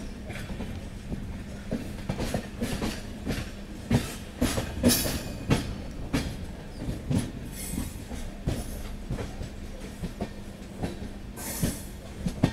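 Express passenger train's coach wheels running over rail joints and points: an irregular run of clacks and knocks over a steady low hum, with two short hisses, one about halfway and one near the end.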